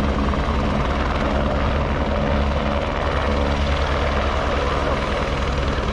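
Helicopter running close by: a loud, steady drone with rapid rotor beating.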